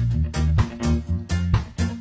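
Background music with a steady bass beat and plucked guitar, in an upbeat swing style.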